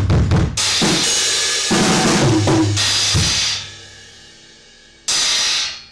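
Drum kit played with crashes on a Paiste PSTX Swiss cymbal, over low drum hits. The ring dies away, then one last cymbal hit about five seconds in is cut off short.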